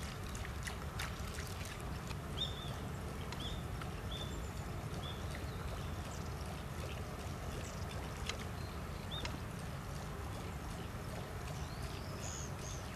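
Faint splashes and ticks of a Cuprap topwater pencil bait lure being twitched across the water's surface, over a steady low rumble. A few short high chirps sound in the first ten seconds.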